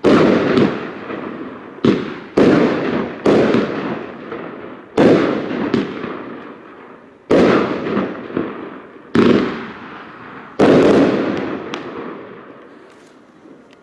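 Argento 'Valentin' 30 mm firework battery (a 25-shot cake) firing its shells: about ten sharp bangs at uneven intervals, each trailing off, fading away after the last one about ten and a half seconds in.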